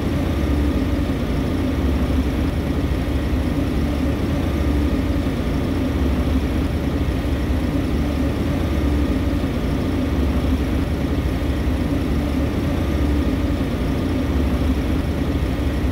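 Steady drone of running machinery: a constant low hum with a steady tone above it, level and unchanging throughout.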